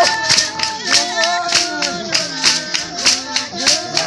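San (Bushman) dance singing: several voices singing together over fast, even hand clapping, about three claps a second.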